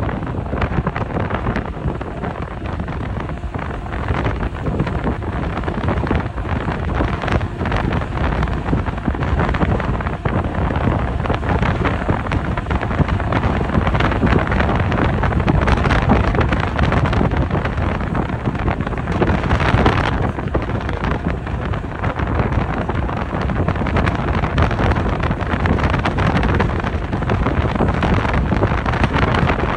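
Wind buffeting the microphone over the steady rumble of a passenger ferry under way.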